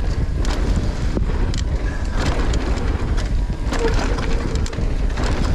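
Wind buffeting the microphone of a mountain biker descending a dirt singletrack, with tyres crunching over dirt and stones and frequent irregular clicks and rattles from the bike.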